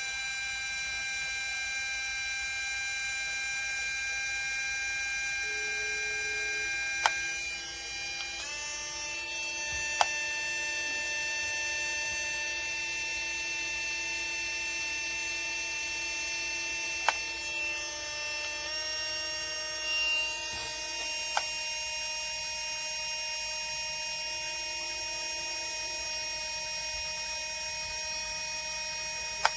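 Cordless rotary tool motor running steadily with a high whine. Its pitch steps up about eight seconds in and shifts again near nineteen seconds, as its speed setting changes. A few sharp clicks are heard.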